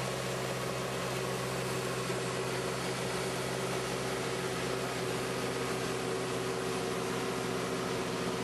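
Tractor engine running steadily with a PTO-driven Valentini FR implement working a gravel road: an even mechanical drone with several held tones under a hiss.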